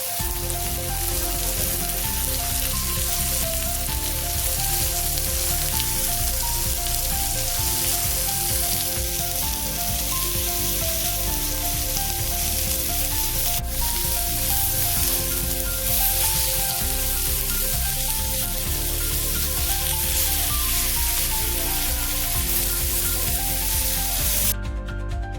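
Food sizzling steadily on a hot tawa griddle, with a single sharp click about halfway through. The sizzle cuts off shortly before the end while background music carries on.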